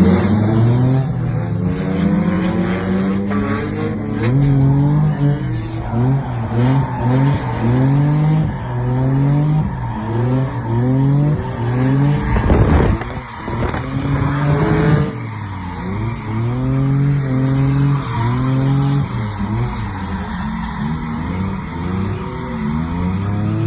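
Drift car engine revving hard, its pitch sweeping up and dropping again and again as the throttle is worked through the slides, with tyres squealing and skidding underneath. A loud rush of tyre noise comes about halfway through.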